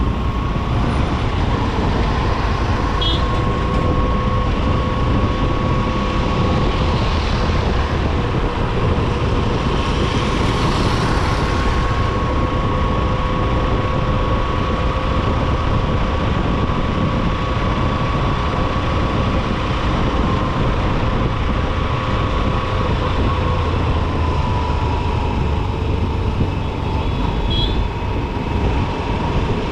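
Honda SP125's single-cylinder four-stroke engine running steadily at cruising speed, heard from the rider's helmet with wind rushing over the microphone; its note eases down slightly a little over three-quarters of the way through as the bike slows. Two brief horn toots sound from the surrounding traffic.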